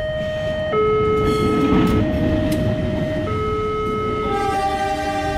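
Level-crossing electronic warning alarm sounding a two-tone signal that switches pitch about every second and a quarter, while a passenger train rolls through the crossing with a rumble. A train horn sounds about four seconds in for over a second.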